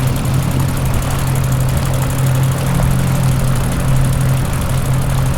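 Loud, steady engine-like mechanical drone with a strong low hum and a rushing noise over it.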